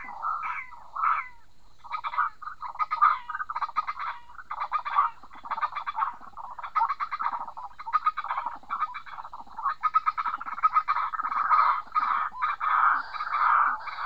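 White-breasted waterhens calling: a long run of harsh, croaking calls repeated rapidly, at first as separate downward-sliding notes about three a second, then crowding into a nearly unbroken chorus.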